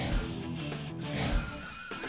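Background rock music with guitar over a steady low beat.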